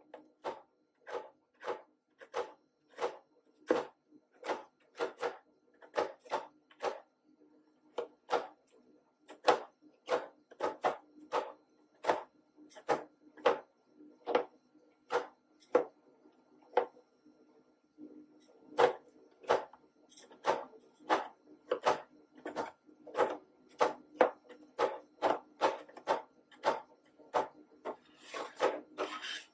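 Stainless-steel spatula edges chopping guava into cream on a steel ice-cream cold plate, sharp taps about twice a second with a short pause a little past halfway, over a faint steady hum. Near the end the blades scrape across the plate.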